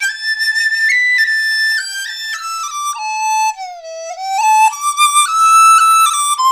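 A flute-like wind instrument playing a solo melody, one note at a time, that starts suddenly. Its notes mostly step between pitches, with a slide down and back up a little past halfway.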